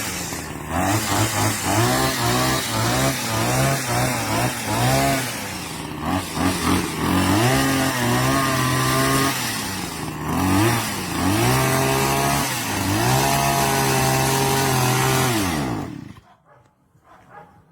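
Small two-stroke petrol engine of a multi-tool brushcutter, revved up and down repeatedly, then held at high revs. It cuts off suddenly near the end.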